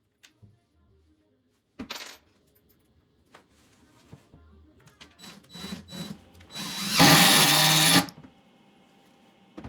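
Power drill driving a wood screw into wood boards: a few clicks and knocks, a couple of short spurts of the drill, then one steady run of about a second.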